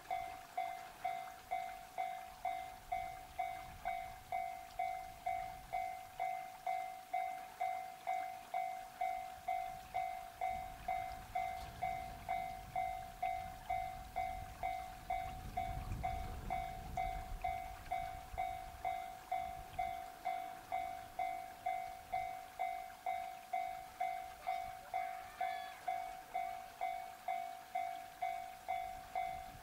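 Level crossing warning bell ringing steadily, a little under two strikes a second, signalling an approaching train. A low rumble swells and fades about halfway through.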